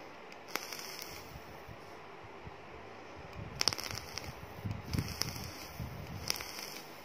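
Juice-soaked Kanthal A1 coil in a Zeus RTA deck sizzling and crackling as the mod fires it in several short bursts.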